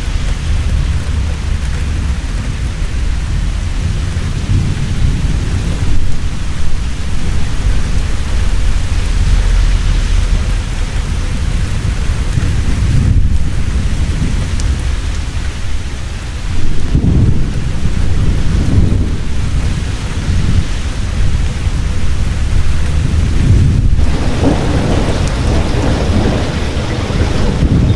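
Heavy rain falling steadily, with deep rolling thunder rumbling through it and swelling louder a few times, most strongly past the middle and again near the end.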